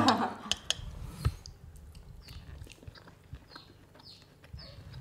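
Chopsticks and a spatula clicking a few times against a steel pot near the start, then quiet eating. Through the rest, a faint high chirp, falling in pitch, repeats about twice a second, like a small bird chirping in the background.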